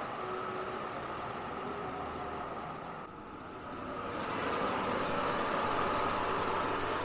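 Bobcat 773 skid loader's diesel engine running as the loader drives. The sound dips briefly about three seconds in, then comes back louder and steady as the loader pulls in close.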